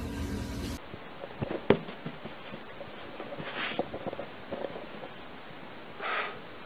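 A steady low hum stops abruptly within the first second. Then come soft scattered taps and thumps of a kitten's paws hopping sideways on carpet, with one sharper click and two short hissing noises a couple of seconds apart.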